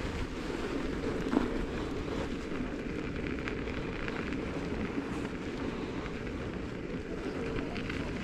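Steady wind buffeting the microphone, a low rumbling noise, with a few faint clicks.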